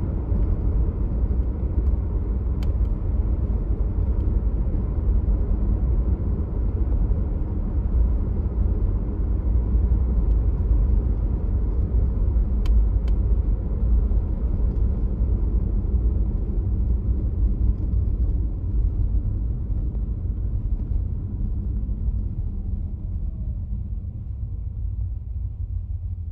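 Tesla Model Y moving, with a steady low road rumble that eases off near the end. Over it come a few faint, sharp pops, one a few seconds in and two close together about halfway: the popping noise that comes with use of the accelerator pedal.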